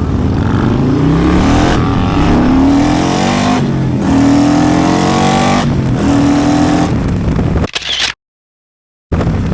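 Harley-Davidson CVO Road Glide's V-twin engine, built to over 200 horsepower, accelerating hard through the gears through its custom stainless exhaust. The pitch climbs and drops back at each upshift, about four times. The sound cuts out completely for about a second near the end.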